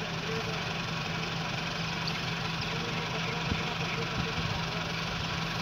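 Steady low hum like an idling engine, with a few faint ticks.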